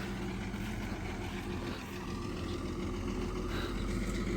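Backhoe excavator's diesel engine running steadily.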